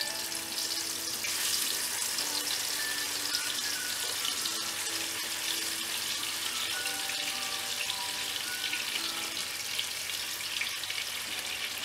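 Masala-coated sardines frying in hot oil: a steady sizzle with fine crackling, growing louder about a second in. Faint background music with a simple melody underneath.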